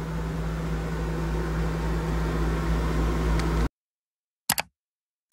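A steady low machine hum with a hiss over it, heard inside a motorhome, cuts off abruptly a little over halfway through. Then come two short, sharp click sound effects about a second apart.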